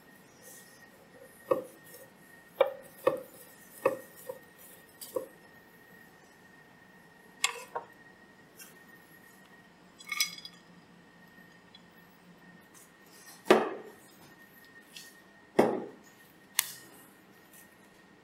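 Sparse kitchen handling sounds. First a run of small knocks as garlic cloves land on a wooden cutting board, then a glass clink with a short ring, then two heavier thuds. A faint steady high whine sits underneath.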